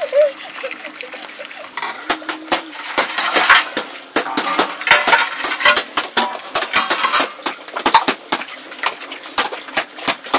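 Metal cookware and utensils clinking and clattering in a run of sharp, irregular knocks, dense from about two seconds in.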